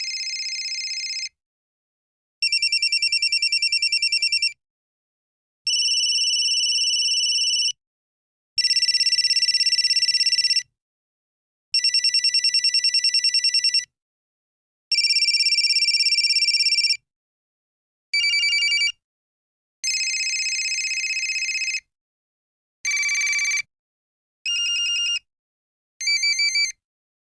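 A series of different mobile phone ringtones: about eleven short electronic trilling rings, each lasting one to two seconds with a brief silence between them, the later ones shorter.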